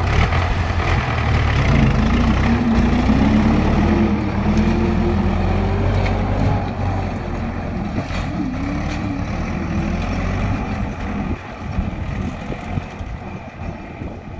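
Tractor engine running steadily, its pitch wavering up and down in the middle and the sound fading toward the end.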